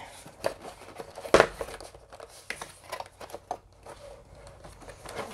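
Cardboard packaging being handled: the tabs pulled and the inner box slid out of its sleeve, with scraping, rustling and small clicks, and one sharper knock about a second and a half in.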